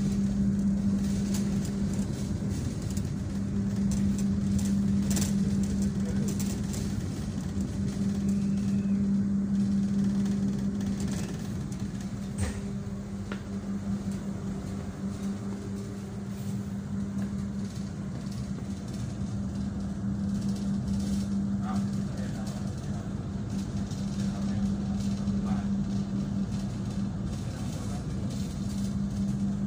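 Cabin noise inside a moving passenger train carriage: a steady low hum over the rumble of the running train, with a couple of sharp clicks.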